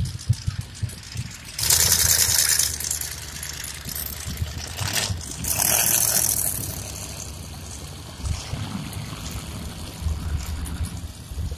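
Truck engines running with a low, steady rumble. Two loud bursts of rushing hiss come about two and six seconds in.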